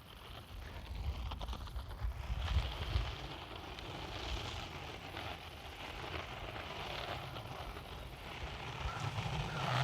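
Wind buffeting the microphone in a low rumble, over the rushing hiss of breaking surf. It grows louder about a second in.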